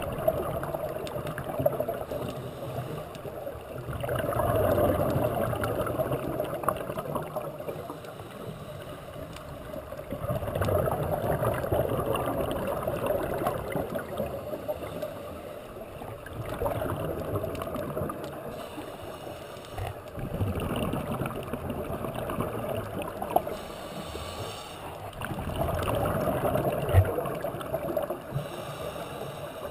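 A scuba diver's regulator breathing underwater, heard through a GoPro housing: gurgling rushes of exhaled bubbles that swell and fade every five or six seconds over a steady watery hiss.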